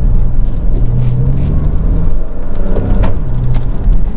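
Porsche Cayman engine running under way, heard inside the cabin with road noise. The engine note drops briefly a little past two seconds in, then rises as the car picks up again, with a sharp click about three seconds in.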